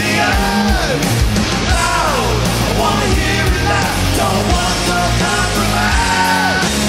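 Live hard rock band playing loudly: bass, drums and electric guitars, with a male voice yelling lines that slide down in pitch several times.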